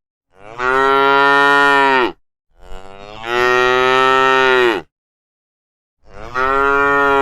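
Cattle mooing: three long, loud moos, each held steady and then dropping in pitch as it ends, with short silent gaps between them.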